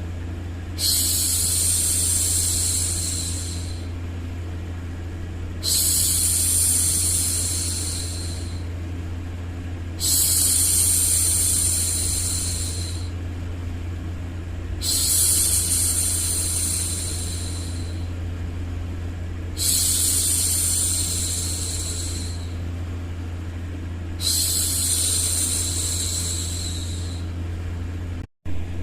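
A woman's drawn-out "shhh" hushing, repeated six times about every five seconds, each lasting two to three seconds, over a steady low rumble of white noise. The sound drops out for an instant near the end.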